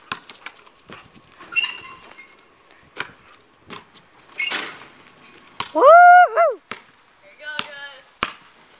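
Scattered sharp knocks and taps of play on a driveway, with a short rattle about four and a half seconds in. About six seconds in comes a loud drawn-out shout, a "woo" of a cheer that rises, holds and falls.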